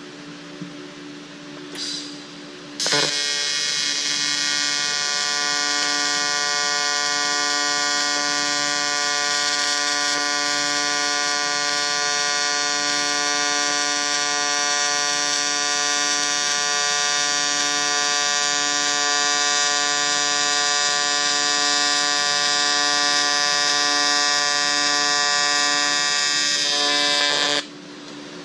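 AC TIG welding arc buzzing steadily while a weld is run, an even high buzz with many overtones. It strikes about three seconds in, after a brief sputter, and cuts off sharply near the end.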